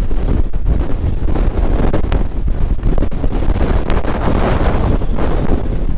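Strong, gusty storm wind blowing across the camera microphone: a loud, continuous rushing and buffeting noise heaviest in the low end.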